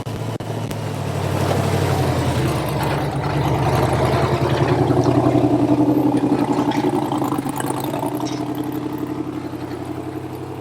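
Off-road rig's engine working under load on a rock climb, with an unmuffled, too-loud exhaust. It builds over the first few seconds, peaks around the middle, then eases off and drops away at the end.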